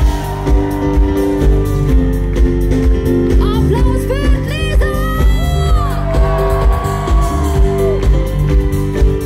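A live band playing pop music with a steady drum beat and sustained notes, with a few sliding high notes that curve up and down around the middle.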